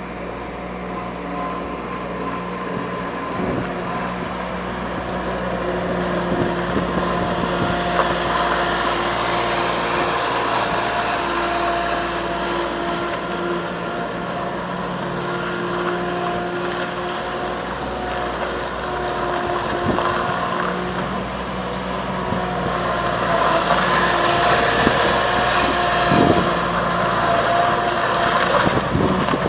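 A 1995 Bobcat 553 skid steer's engine running steadily. It gets louder and busier about three-quarters of the way through.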